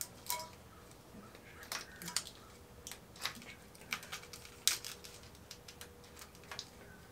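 Irregular light clicks and taps of plastic wiring-harness connectors being unplugged and the harness being handled.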